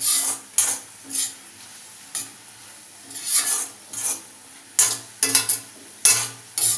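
Spatula stirring vegetables in a hot frying pan: irregular scraping strokes against the pan, about a dozen, over the sizzle of frying.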